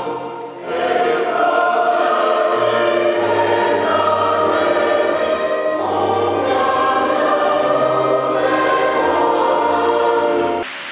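A choir singing in parts with long held notes. It breaks off suddenly near the end.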